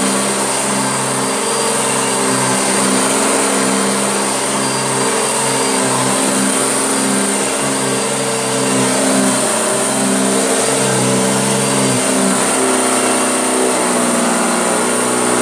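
Circa-1972 Hoover Junior bagged upright vacuum cleaner running steadily as it cleans carpet strewn with dog hair, a constant motor hum with airy hiss. Its pitch shifts slightly about twelve seconds in.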